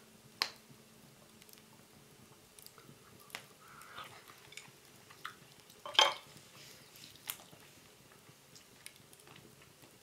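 A person chewing a mouthful of raw venison, with several sharp clicks of chopsticks against ceramic dishes. The loudest click comes about six seconds in, as the chopsticks are laid down against the sauce bowl.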